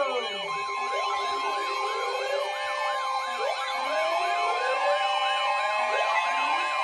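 Several sirens sounding at once, a fast rising-and-falling yelp repeating about twice a second over slower wails. A steady tone joins about half a second in.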